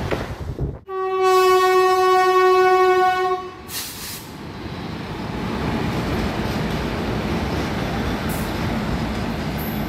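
Indian Railways electric locomotive's horn sounding one long, steady blast of about two and a half seconds, followed by a short hiss. The train then runs past with a steady rumble of wheels on rail.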